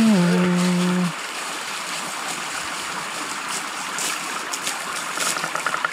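Small rocky creek running, a steady rush of water over stones. Right at the start comes a single low, drawn-out voice-like call that dips a little in pitch and lasts about a second.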